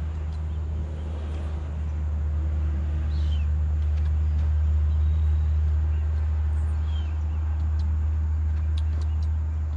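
Steady low hum of an engine or motor running without a break, with a bird giving a short falling whistle twice and a few faint ticks near the end.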